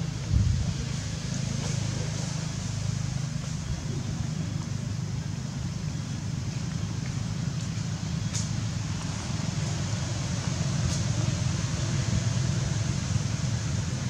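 Steady low rumble of outdoor background noise, with two brief, faint high-pitched sounds about eight and eleven seconds in.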